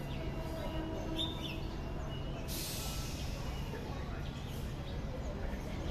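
Outdoor ambience: a steady low background rumble with birds chirping briefly, and a sudden hiss about two and a half seconds in that fades away over a second.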